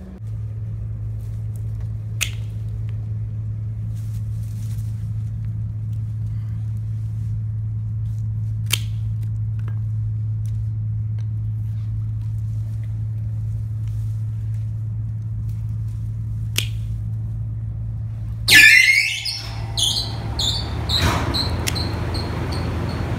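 Pruning shears snipping woody vitex stems, a few sharp clicks spaced several seconds apart, over a steady low hum. Near the end a loud sudden noise breaks in and gives way to a steady hiss.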